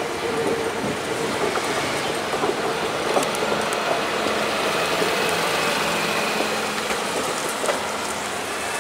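PESA Elf 2 electric multiple unit rolling past close by: a steady rush of wheels on rail, with a faint whining tone under it through the middle of the passage.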